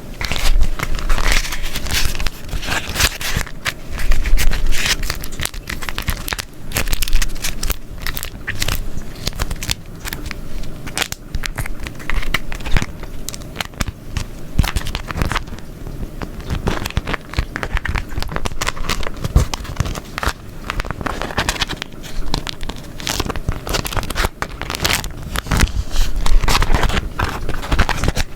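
Beeswax wrap being crumpled and folded close to the microphone: irregular crackling and crinkling with a sticky, tacky peel as the waxed fabric pulls apart from itself, in uneven handfuls.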